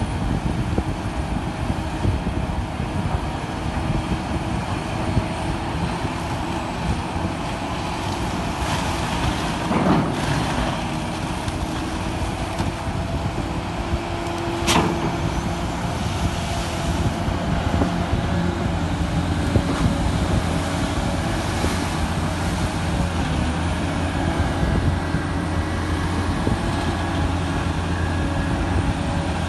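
Heavy diesel machinery of a backhoe dredger running with a steady low drone, with a single sharp knock about halfway through.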